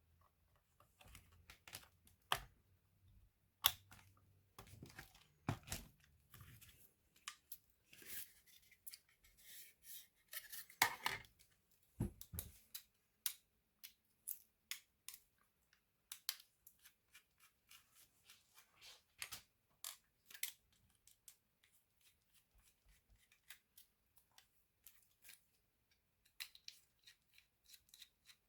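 Quiet, irregular clicks, taps and scrapes of small hard parts being handled, with a longer stretch of scraping and rustling in the middle.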